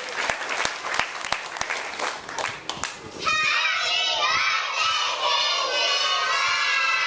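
Scattered clapping thins out over the first three seconds. Then, about three seconds in, a group of small children's high voices start up together in chorus.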